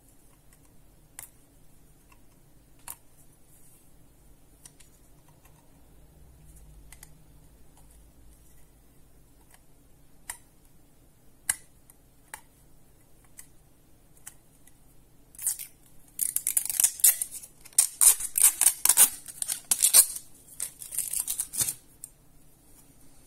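A small hard-plastic USB wall charger handled and turned over in the fingers: scattered small clicks and taps, then, about two-thirds of the way through, several seconds of dense, crisp rustling and scraping, the loudest part.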